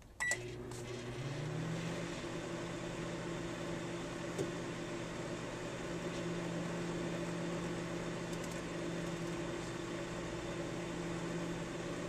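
Microwave oven switched on: a click and a short beep, then the steady hum of the running oven. The hum rises slightly in pitch over the first second or two, then holds steady.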